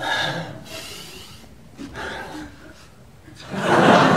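Wordless human vocal sounds, then a loud rushing burst of noise about a second long near the end.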